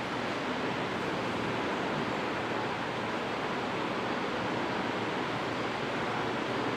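Steady hiss of background noise, even and unchanging, with no distinct events.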